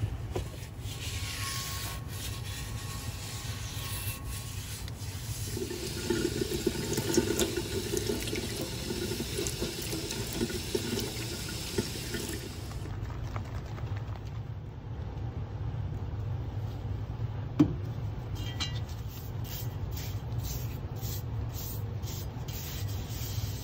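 Water poured over a brake drum, splashing off the metal and running into the tub, with a short knock near the end.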